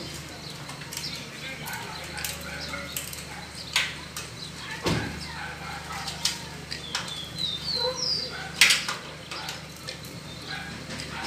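Scattered taps, clicks and a few sharper knocks of a screwdriver and hands working on the hinge of a metal door. A bird sings a short run of rising notes about two-thirds of the way through.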